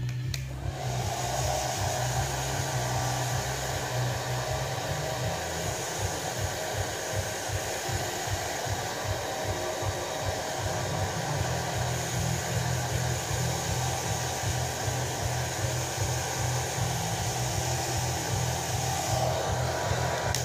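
Handheld hair dryer blowing steadily on a cat's fur; it switches on just after the start and winds down and stops near the end.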